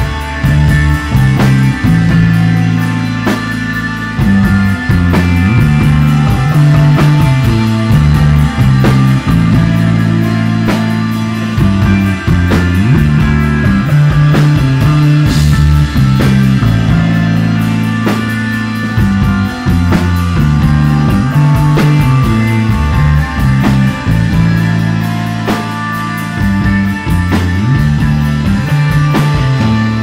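Live instrumental desert rock band playing: electric guitar, bass guitar and drum kit, with a heavy bass line that changes note every second or so under steady drum hits.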